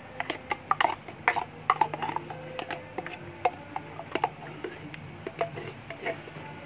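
Metal spoon scraping and clicking against a plastic cream jar and a steel bowl as thick lotion is dug out of the jar, giving irregular short clicks and taps.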